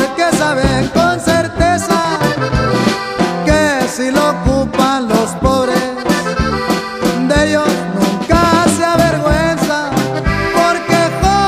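Instrumental break of a norteño corrido: an accordion plays an ornamented melody over a bass line and a steady strummed rhythm.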